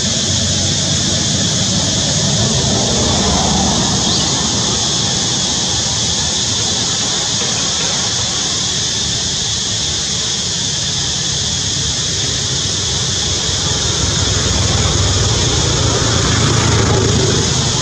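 Steady outdoor background noise: a low rumble under a constant high hiss, rising slightly in level near the end.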